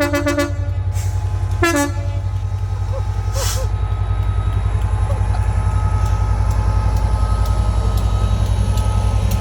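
Train horn giving two short two-tone toots, the first at the start and the second about a second and a half later, over the steady low throb of the train's diesel engine. There is a short hiss a little after three seconds in.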